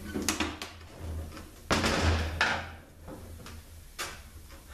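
Metal internal parts of an Aisin AW450-43LE automatic transmission clanking and scraping as they are worked loose and pulled from the case. There are a few sharp knocks, a louder scrape about two seconds in, and another knock near the end.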